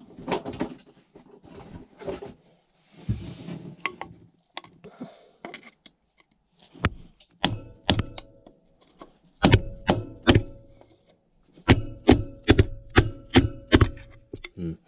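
A few handling clunks, then from about seven seconds in roughly fourteen sharp metal taps in quick groups, each leaving a short ringing note. This is a hammer striking the heat exchanger of a Beta Marine 28 hp marine diesel to try to shift its blocked, corroded tube stack.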